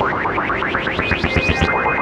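Electronic background music: a synthesizer plays fast, rippling rising figures over held tones and a soft low pulse.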